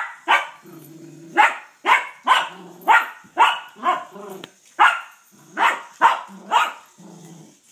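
Small dog barking repeatedly at a toy train, about a dozen sharp barks roughly every half second, with a lower, longer sound between several of them.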